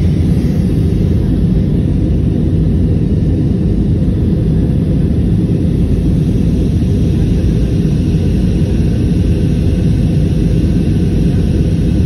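Steady jet airliner cabin noise, the low, even rumble of the engines and airflow heard from a window seat inside an Airbus A320-family jet.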